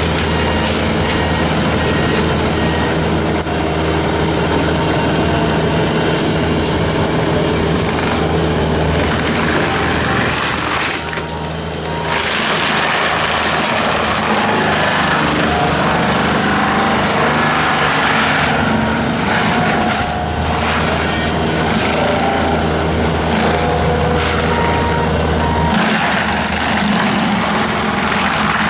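Bobcat T770 tracked skid steer's diesel engine running under load while its forestry mulcher head shreds brush, a dense grinding noise over a steady engine drone. The shredding noise eases briefly about eleven and twenty seconds in.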